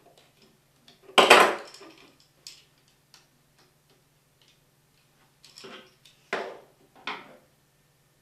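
Hand tools and a wall receptacle being handled while it is wired: a loud clatter about a second in, then several softer clicks and knocks.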